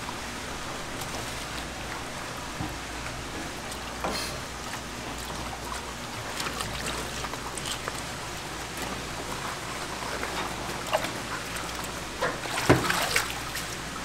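Running tap water splashing into a stainless steel sink as halved napa cabbages are washed by hand, the leaves rubbed and swished in the water. Near the end come a few louder splashes and knocks as the cabbage is lifted out.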